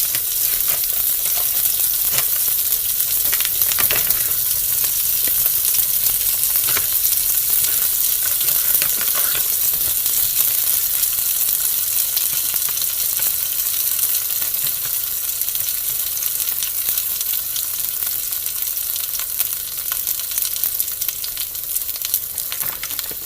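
Potstickers frying in oil in a skillet: a steady sizzle with scattered crackles and a few louder pops.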